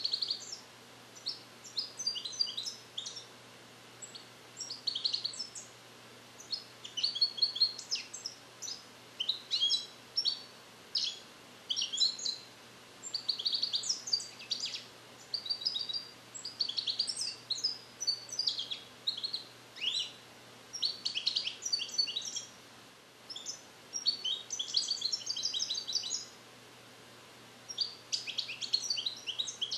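Young male European goldfinch singing, song-trained in the Neapolitan 'passata' style: fast, high twittering phrases and trills broken by short pauses. He is starting to repeat the passate but his song is not yet complete.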